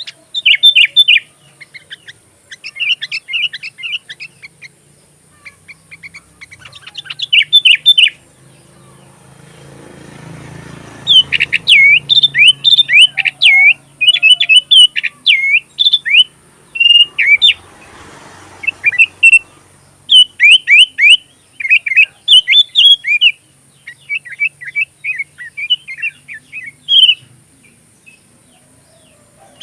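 Sooty-headed bulbul (kutilang) singing: bursts of quick, chirpy notes in phrases of one to two seconds with short pauses between them, and a longer unbroken run of busier chirping about halfway through.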